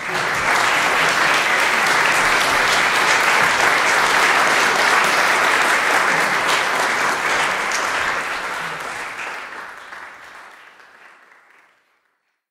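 Audience applause, a dense patter of many clapping hands that starts suddenly, holds steady, then fades out over the last few seconds.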